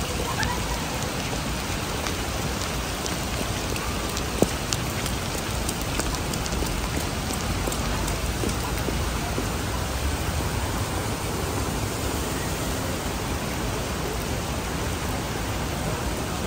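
Heavy rain pouring onto paved ground, a steady dense hiss. One sharp click about four seconds in.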